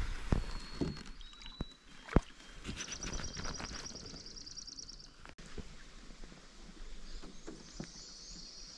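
A few sharp knocks against a canoe, then a bird's rapid high trill held for about two seconds, which starts again near the end; a couple of short high whistled notes come in the first two seconds.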